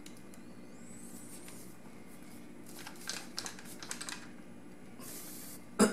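Light clicks and taps of hands handling a Zero Sports steering wheel, turning it over and fingering its rim and hub, with one louder knock near the end.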